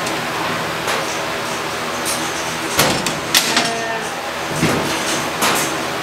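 Metal gates of a sheep-handling weigh crate clanking and sliding as lambs are worked through it, several sharp knocks over a steady hum.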